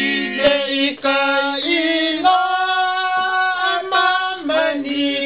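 A small group of young male and female voices singing together in Tongan, with one long held note about halfway through.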